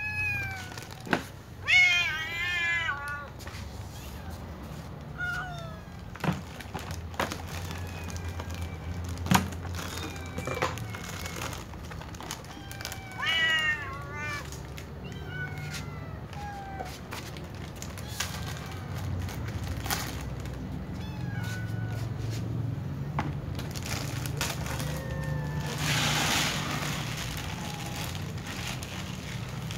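Several domestic cats meowing for food, with a few loud meows that rise and fall in pitch and many shorter, fainter ones, among scattered sharp clicks and knocks. A short rushing noise comes a few seconds before the end.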